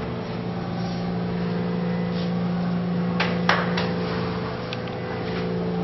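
Steady low hum of a few held tones, with two sharp taps about a third of a second apart, roughly three seconds in.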